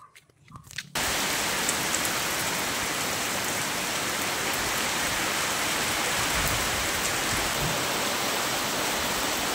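Heavy rain pouring down in a steady, even wash that starts suddenly about a second in, after a quiet moment with faint ticking.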